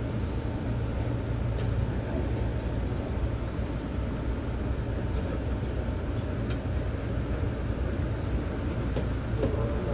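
Interior running noise of a Seibu 6000 series commuter train: a steady low rumble from the car.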